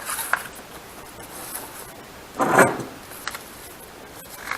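Paper owner's manual being handled and its pages turned: small clicks and rustles, then one loud rustling swish of a page a little past halfway, with a few faint ticks after.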